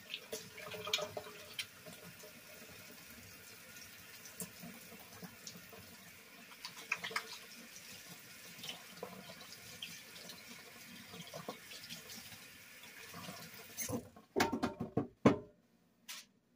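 Kitchen tap running into the sink as hands are washed under it, water splashing with small clicks and knocks. The water stops about fourteen seconds in, followed by a few loud clicks and knocks.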